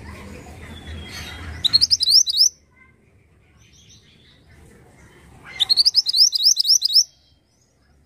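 Male minivet (mantenan) singing: two quick bursts of rapid, rising whistled notes, the first just under two seconds in and the second, longer one from about five and a half seconds.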